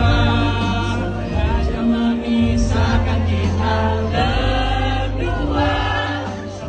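A pop song with several voices singing together over steady, sustained bass notes.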